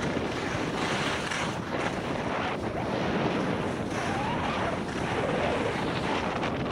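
Wind rushing over the microphone of a skier moving downhill, with the hiss and scrape of skis sliding over packed snow, rising and falling with the turns.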